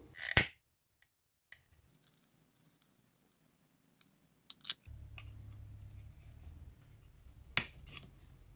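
Small screwdriver clicking and scraping against the plastic brush holder plate of a car wiper motor, a few sharp clicks with pauses between them, the loudest near the start.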